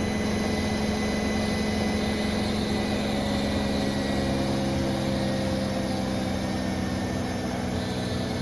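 Bosch Serie 4 WAN28281GB washing machine on its final spin: a steady motor and drum hum with a thin, high squeal that fades out about halfway through. The owner does not know the cause and wonders whether it is the bearings or the drive belt; he had first taken it for suspension noise.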